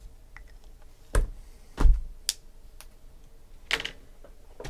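Cardboard card boxes and a marker being handled on a tabletop: a few light clicks, two heavy knocks about a second in and just under two seconds in, two sharper clicks, then a short scraping rustle near the end as a box is set back onto a stack.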